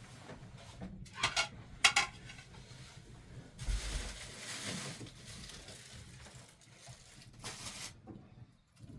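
Household handling sounds, likely dishes: a few sharp clinks and knocks in the first two seconds, then rustling and shuffling.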